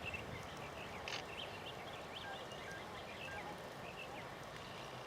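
Birds chirping and whistling in many short, quick calls over a steady outdoor hiss.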